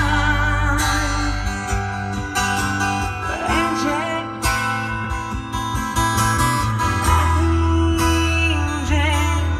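A song with strummed acoustic guitar and a strong bass line, played loud through an upgraded car audio system (Nakamichi head unit, three-way front speakers and a 12-inch subwoofer) and heard inside the car's cabin.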